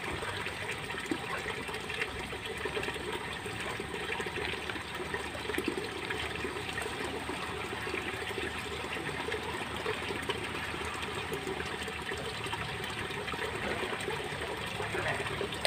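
Steady rushing and splashing of a fountain jet spraying water into a swimming pool.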